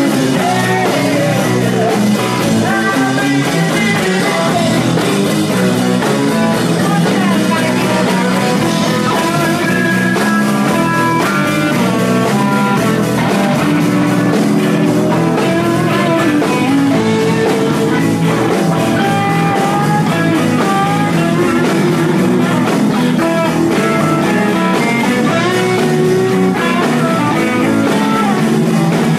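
Live rock band playing a guitar-led number, with guitar lines over a steady band backing.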